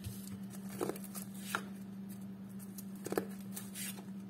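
Tarot cards being handled and shuffled: a few short, soft flicks and rustles over a steady low hum.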